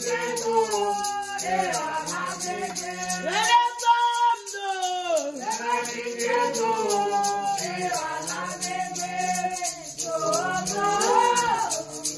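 People singing with a gourd rattle shaken in a steady, even rhythm.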